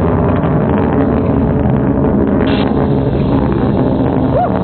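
Delta II rocket in powered climb, heard from a distance as a steady, loud, low-heavy rumble of engine noise.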